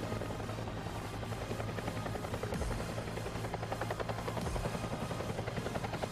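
Helicopter in steady flight: a fast, even rotor chop over a low, steady engine hum.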